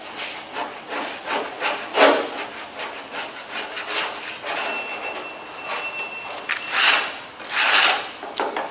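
A hand-held scraper blade scraping softened paint off a car body panel in a series of irregular strokes, the strongest about two seconds in and two longer ones near the end. The aircraft paint stripper has lifted the blue top coat, leaving the primer behind.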